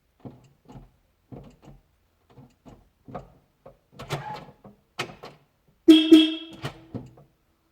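A run of sharp clicks and knocks from parts of a Porsche 986/996 door-lock mechanism being handled and worked on. About six seconds in comes the loudest sound, a short pitched tone that fades away over about a second.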